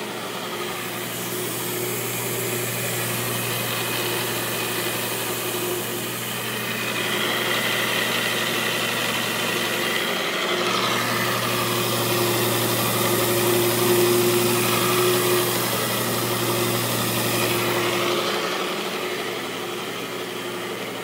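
PowrFlite Multiwash counter-rotating brush carpet scrubber running, its electric motor giving a steady hum while the brushes scrub the carpet during low-moisture encapsulation cleaning. It grows louder from about seven seconds in and eases off again near the end.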